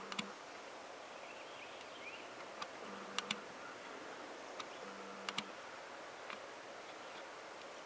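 Quiet creekside ambience: a soft steady hiss with a few sharp clicks scattered through, some in quick pairs, and a brief low hum twice.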